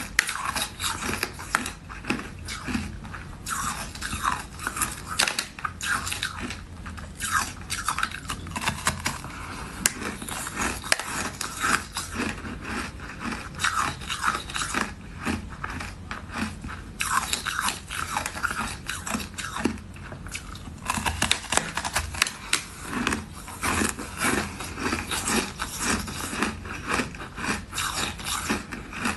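A person biting into and chewing a slab of frozen purple-flavoured ice: dense, irregular crunching and crackling that keeps going with hardly a break.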